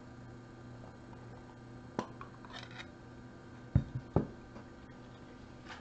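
Clear plastic one-touch card holders being handled on a desk: a sharp click, a short rustle, then two heavy thumps about half a second apart with a lighter knock between, and another click near the end.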